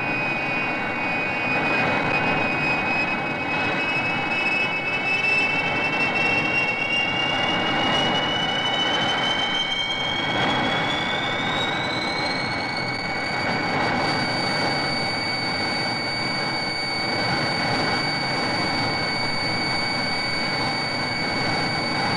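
Rodan flying sound effect: a steady jet-like rushing noise with a high whine on top. About halfway through, the whine slides up in pitch over a few seconds and then holds at the higher note.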